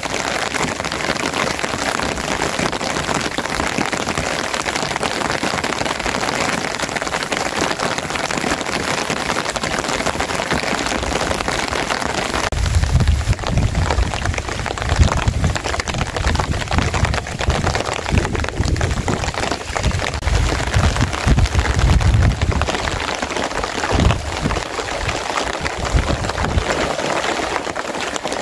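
Steady rain falling on the forest and the ground. From about twelve seconds in, a low, uneven rumble swells and fades beneath the rain.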